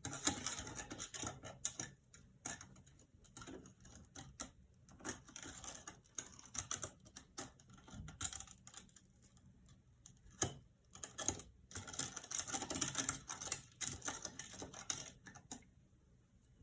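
A spoon stirring borax powder into water in a small cup to dissolve it, making rapid, irregular clicking and scraping in uneven spells.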